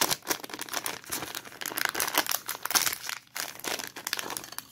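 Thin clear plastic bag crinkling and crackling in the hands as it is handled and worked open, an irregular run of rustles.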